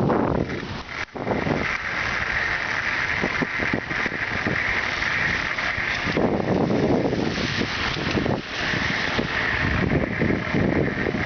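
Traffic passing on a rain-wet city street, with tyres hissing on the wet pavement and wind buffeting the microphone.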